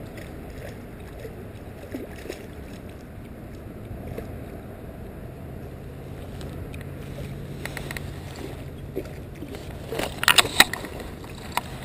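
A hooked largemouth bass splashing at the surface of shallow water as it is played in, a quick run of sharp splashes about ten seconds in and a couple of fainter ones a little before, over a steady low background hiss.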